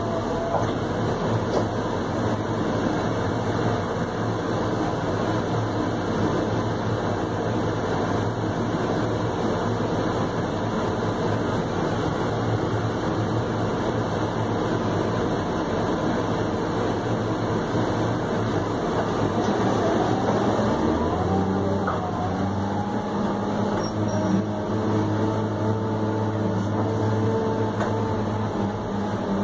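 New Holland RG140B motor grader's diesel engine running steadily, heard from inside the cab. About two-thirds of the way through, the engine note steps up to a higher pitch.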